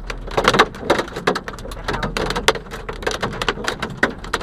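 Hailstones striking the car's windshield and body: irregular sharp knocks, several a second, over the hiss of rain.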